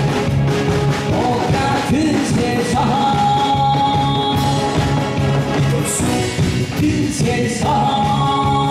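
A male voice singing over amplified backing music with a steady beat, holding long notes twice.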